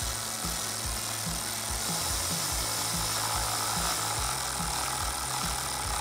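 Ratchet driving a T30 Torx socket, running as it tightens a bolt into a clip nut, heard under background music with a steady beat.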